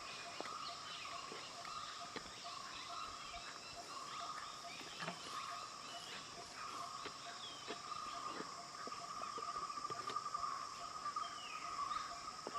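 A steady, pulsing chorus of insects, with a faint regular ticking beneath it and scattered short bird chirps and small clicks.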